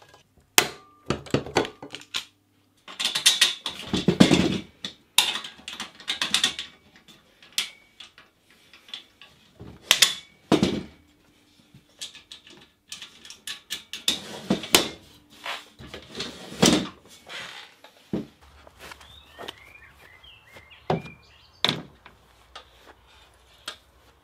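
Hand pop-rivet gun setting rivets through aluminium corner brackets, with sharp snaps and clanks of the metal frame handled on a wooden workbench. In the last few seconds, birds chirping outdoors and a couple of knocks as the aluminium frame is handled.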